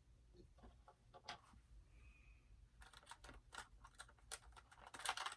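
Small plastic doll accessories and their packaging being handled: a scatter of light clicks and crinkles that grows busier and louder near the end.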